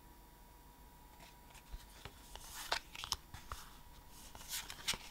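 Pokémon trading cards being handled and slid one past another: a run of short, irregular clicks and rustles starting about a second in.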